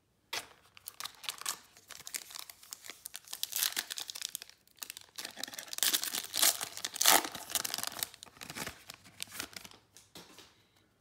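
Foil wrapper of a Panini Prizm basketball trading-card pack being torn open by hand and crinkling. The tearing and crackle are loudest about halfway through.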